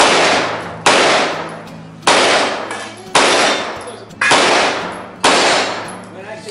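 Handgun shots fired at a steady pace of about one a second, each a sharp crack that trails off in a long echo.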